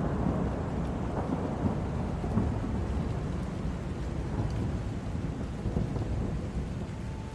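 Thunderstorm: a low rolling rumble of thunder over steady rain, slowly dying away.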